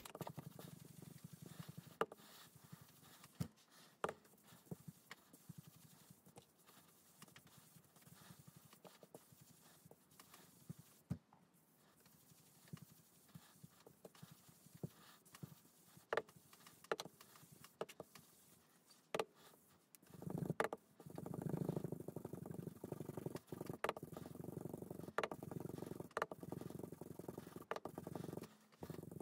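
Faint, scattered light taps of a foam ink dauber on card and ink pad. About two-thirds of the way through, a steadier soft rubbing starts as ink is blended across the card.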